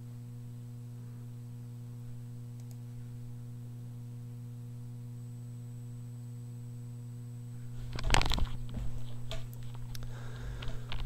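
Steady low electrical hum in the recording. About eight seconds in comes a short, loud noise, followed by a few faint clicks and scuffs.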